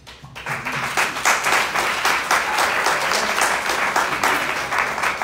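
Audience applauding, a dense patter of many hands clapping that breaks out about half a second in and keeps going.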